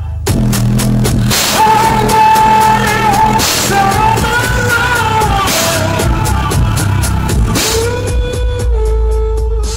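A song with a sung vocal, drums and heavy bass playing loud through a Xion car audio system: three subwoofers plus midrange speakers and tweeters. A deeper bass swell comes in near the end.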